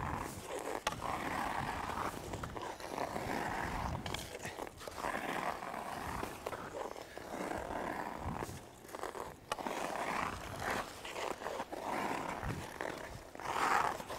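Hockey skate blades carving the ice on forward outside-to-inside edge pushes, a scraping swish that swells with each stride, roughly once a second.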